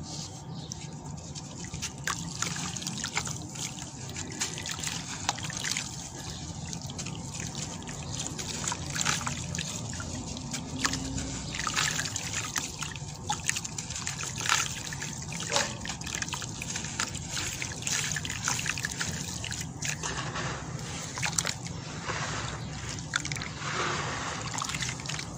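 Dry sand-cement block crumbled by hand, its grit trickling into a tub of water as a steady stream of small crackles and crunches. Near the end a hand stirs the wet cement slurry in the water.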